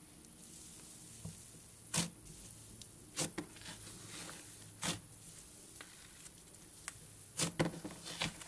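Cloud butter slime being kneaded, pressed and stretched by hand as pink glitter is worked in: faint soft squishing broken by a few sharp crackles and pops, several close together near the end.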